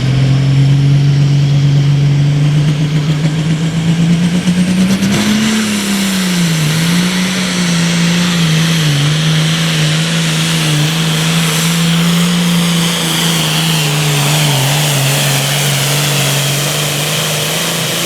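International Harvester 3688 farm tractor's turbocharged diesel engine running at full throttle under load as it pulls the weight-transfer sled down the track. The engine pitch climbs about four seconds in, dips and wavers for a few seconds, then holds steady.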